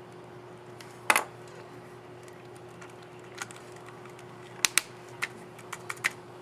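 Laptop scissor-switch keys on an HP Pavilion x360 keyboard clicking as they are pressed. A loud double click comes about a second in, then scattered presses, with several in quick succession near the end.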